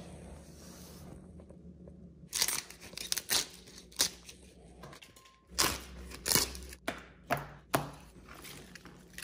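Fresh Portuguese kale leaves torn off their stems by hand: about nine quick ripping strokes, starting about two seconds in.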